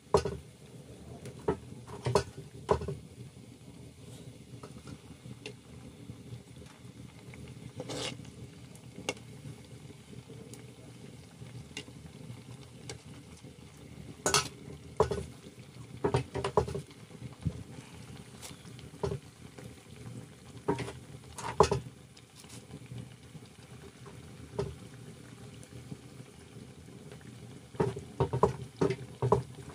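Dough pieces deep-frying in oil in a black iron wok, the oil sizzling steadily, with clusters of sharp clicks and scrapes of a metal utensil against the pan every few seconds.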